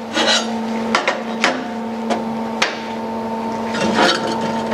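Beveled steel plates knocking and clinking on a slotted steel welding table as they are set down and butted together, with a handful of sharp knocks in the first few seconds and scraping as the plates slide into place. A steady hum runs underneath.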